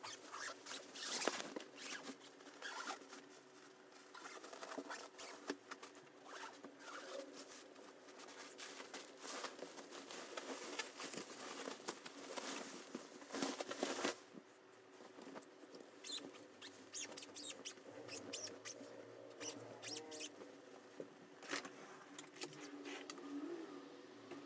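Bedding fabric rustling and scuffing as a duvet, its cover and pillows are handled, with scattered soft knocks and clicks, over a faint steady hum.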